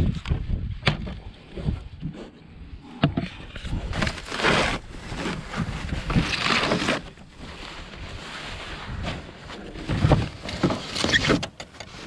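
Foam packing sheets and a cardboard box rustling as they are pulled aside by hand, in irregular bursts with a few sharp knocks and clicks.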